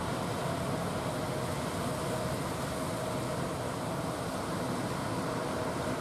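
Steady rush of breaking surf, with the faint wavering drone of an outrigger fishing boat's engine running through it.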